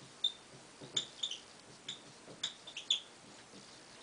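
Dry-erase marker squeaking across a whiteboard as words are written: a string of short, high squeaks with light taps between strokes.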